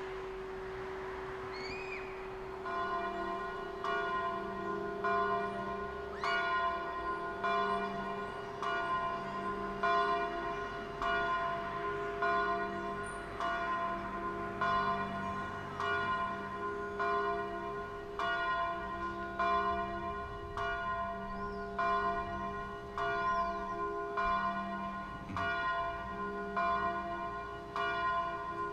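A steady ringing tone, then from about two and a half seconds in a bell struck over and over at an even pace, about three strokes every two seconds. Each stroke rings with the same set of tones.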